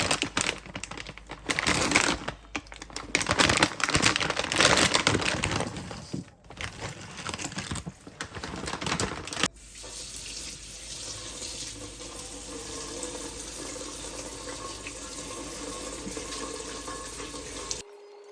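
Water from a tap running into a sink, splashing unevenly. It cuts off suddenly about halfway through, leaving a much quieter steady hiss.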